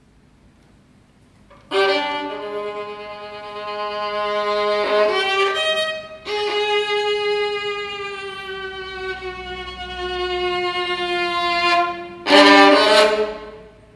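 Solo violin playing long bowed notes after about two seconds of quiet, the longest note sliding slowly downward in pitch. Near the end comes one loud, forceful bow stroke that dies away.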